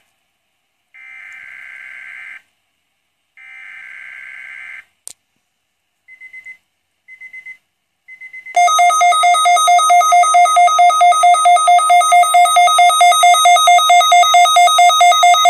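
A Midland WR-120EZ weather radio receiving an alert test. Two raspy data bursts of about a second and a half each (the broadcast's digital SAME alert header) come first, then a click and three short beeps. About eight seconds in, the radio's alert siren sounds, a loud, rapidly pulsing high tone.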